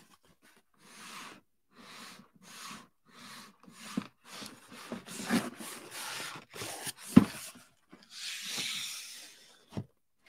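Cardboard shipping box being handled on a wooden desk: a run of short scuffs about a second apart as it is tilted and turned, then a few knocks, the loudest about seven seconds in, and a longer scrape near the end.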